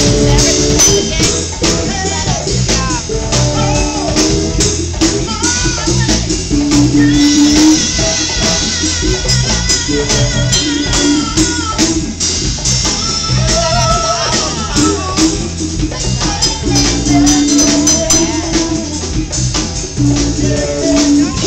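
Live band jamming in a funky, reggae-tinged groove: electric bass and drum kit with hand-played congas, a lap steel guitar sliding and wavering on top, and a man singing into the microphone.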